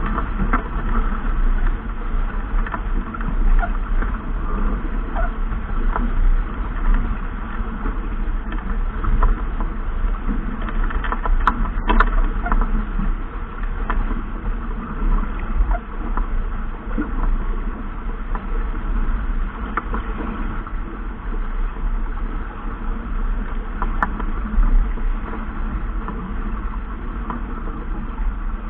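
Steady rushing noise of wind and water aboard a sailing yacht under way in a race, with a deep rumble throughout. Scattered clicks and knocks run through it, sharpest about twelve seconds in and again near twenty-four seconds.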